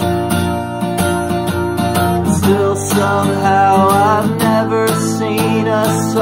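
Acoustic guitar strummed in a steady rhythm, with a wordless, wavering vocal melody sung over it.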